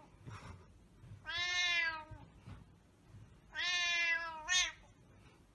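A cat meowing: two long, drawn-out meows, the second followed quickly by a short one.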